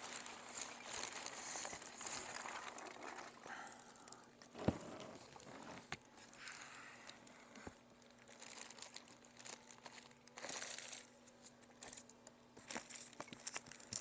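Plastic bag crinkling and rustling as a heavy packaged box is handled, with scattered small clicks and one sharp knock about a third of the way in.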